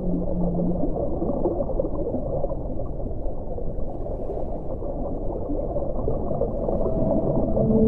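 Underwater ocean ambience: a steady low bubbling water noise. A long, low held whale call fades out about a second in, and another steady whale call begins near the end.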